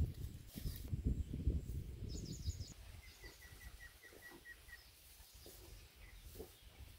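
Birds calling: a quick run of high chirps, then a string of about nine short, evenly spaced piping notes. Underneath, a low rumbling noise is loudest in the first two seconds and then fades.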